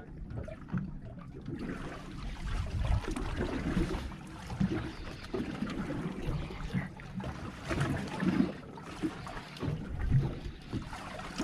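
Wind buffeting the microphone and water sloshing against the hull of a small fishing boat at sea, in uneven gusts and swells.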